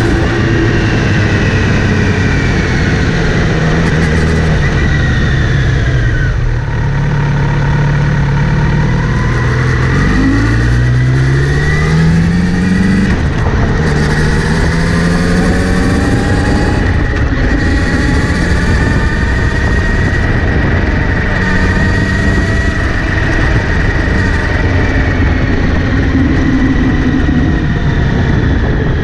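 Kawasaki Z900RS inline-four motorcycle being ridden, its engine pitch rising under acceleration and falling off several times, over a steady low rumble. It carries a whirring that comes in when accelerating or in gear, which the owner places around the front sprocket after cleaning and relubing the chain.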